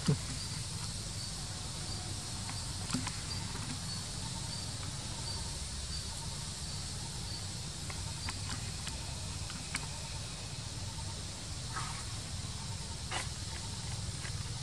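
Insects chirping in even, repeating pulses over a steady low rumble, with a few faint brief clicks and taps.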